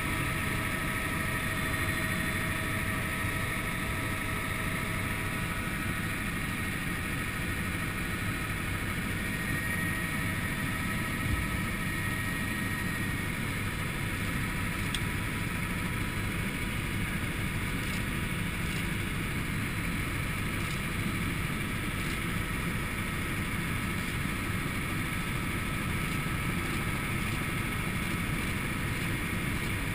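Helicopter in steady cruise flight, heard from inside the cabin: an unchanging drone of engine and rotor with a few steady tones running through it.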